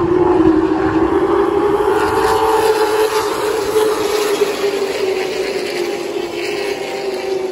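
Super trucks racing past on an oval track, their engines running at speed. The engine note rises slightly as they come by, then drops and fades as they pull away into the turn.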